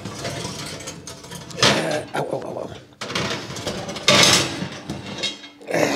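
Heavy cast iron turkey pan being slid out of an electric oven: a few scrapes and clanks of iron against the metal oven rack, the loudest about four seconds in.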